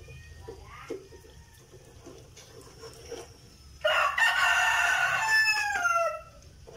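A rooster crows once about four seconds in, a loud call about two seconds long whose pitch drops at the end. Before it, light clicks and scrapes of a spatula in a frying pan.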